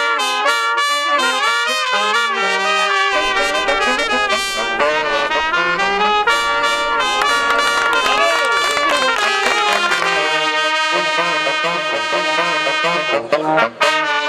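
Brass music, with trumpets playing a melody in changing notes.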